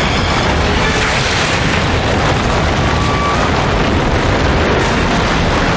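Loud, continuous rumbling crash, a sound effect on a cartoon soundtrack, running steadily throughout.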